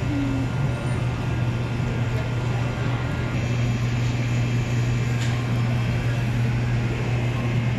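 Steady low hum of a supermarket's refrigeration and ventilation, with an even background noise.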